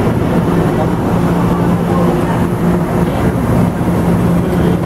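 Passenger train standing at the platform, running with a steady low hum over a constant loud rumble.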